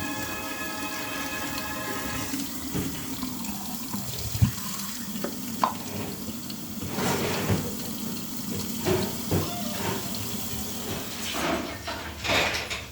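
Water running from a kitchen faucet into the sink, with a few knocks and clatters.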